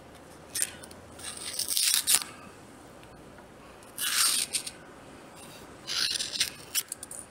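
Opinel No.9 pocket knife blade slicing through something, four separate scraping cuts with pauses between them, as a test of its out-of-the-box sharpness.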